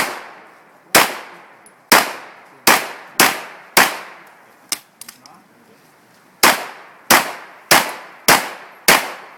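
Rapid shots from a .45-calibre pistol, each a sharp crack with a fading echo. About six shots come roughly half a second to a second apart, then a pause of about two and a half seconds with one small click, then about five more shots at a steady, quicker pace.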